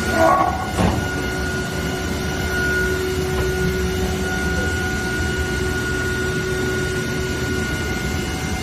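EGURKO DART 800 CNC machining centre running with a steady hum and a constant high whine over a lower tone. A short louder blip and a knock come in the first second.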